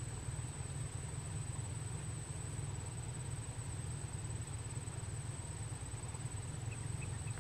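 Steady outdoor ambience: a low, even rumble with a thin, steady high-pitched tone above it, and no distinct events.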